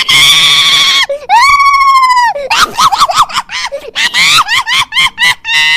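Comedy phone ringtone of a shrill child's voice: a scream about a second long, then a held wail, then a fast run of short yelled cries.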